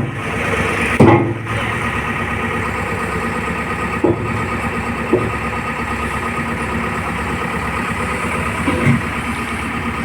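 JCB backhoe loader's diesel engine running steadily, with a few short knocks over it, the loudest about a second in.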